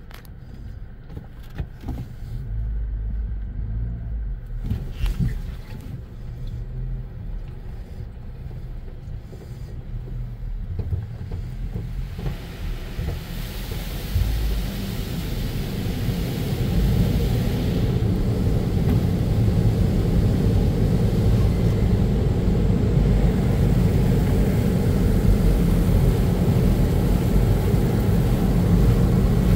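Automatic cloth car wash heard from inside the car: a low rumble with scattered knocks as the cloth strips and machinery work over the car. From about twelve seconds in, the drying blowers come on, a steady rush of air that builds over a few seconds and stays loud.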